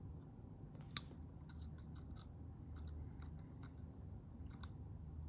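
Cuticle scissors snipping the end of a twisted wire, one sharp click about a second in, followed by faint scattered ticks of the metal blades and wire being handled.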